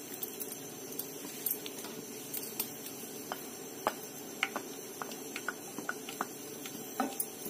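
Ghee melting in a hot kadhai, giving scattered faint ticks and crackles over a steady low hum.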